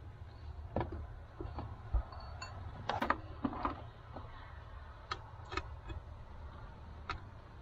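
Scattered light clicks and clinks of RCA cable plugs being handled and pushed into a car amplifier's inputs, a few of them sharper about three seconds in.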